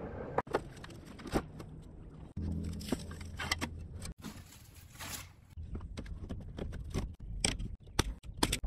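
Work noises against the steel container wall, cut together: knocks and handling sounds, then, in the last second and a half, a hand pop-rivet tool fastening a louvered vent, giving several sharp snaps as the rivets set.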